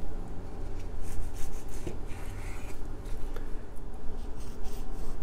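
Chinese cleaver slicing thin strips from a raw beef steak on a wooden cutting board: a series of short cutting and scraping strokes as the blade goes through the meat and meets the board.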